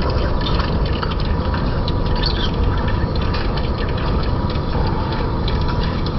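Lathe running under cut as the tool turns down the journal of a 40Kh alloy-steel shaft: a steady machine rumble with a faint steady tone and a scatter of small ticks.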